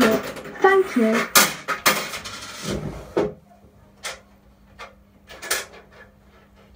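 Coins clattering and clicking as they drop through a kiddie ride's coin mechanism, with several sharp metallic clicks in the first three seconds. After that come a few fainter clicks and a steady low electrical hum.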